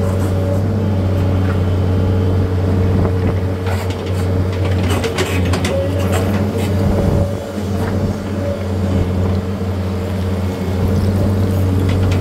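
A machine's engine running steadily, with a spell of scraping and crunching stone from about four to seven seconds in.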